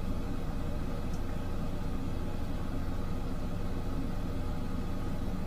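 Steady low background hum.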